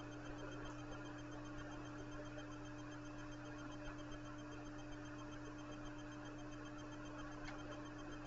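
Quiet room tone: a steady low electrical hum under an even hiss, with one faint click near the end.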